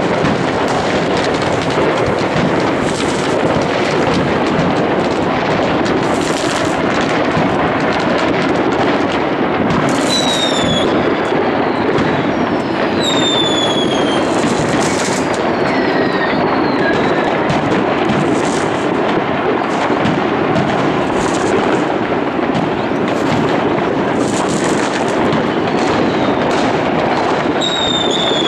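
A continuous barrage of fireworks going off across a town, with dense crackling and many overlapping bangs. Whistling fireworks shriek and fall in pitch several times: about a third of the way in, again shortly after, and near the end.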